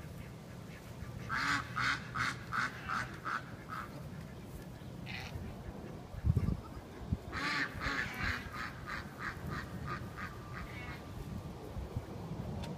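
A duck quacking in two runs of quick quacks, about three a second. The second run is longer and fades away.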